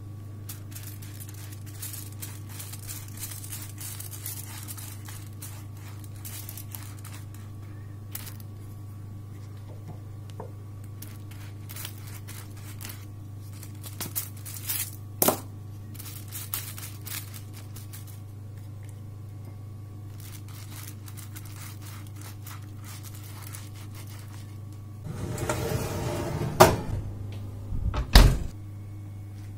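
A silicone pastry brush dabbing and stroking oil onto halved eggplants on a foil-lined baking tray, with faint crackling of the foil and a sharp tap on the tray midway. Near the end the tray scrapes into the oven, with two loud knocks as the oven door is shut, all over a steady low hum.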